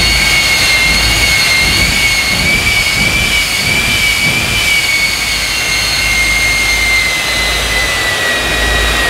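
Jet semi truck's twin jet engines running hard with the afterburners flaring, the truck held on the strip rather than moving off. A loud, steady, high-pitched whine rides over a rushing roar, and the whine drops slightly in pitch about seven seconds in.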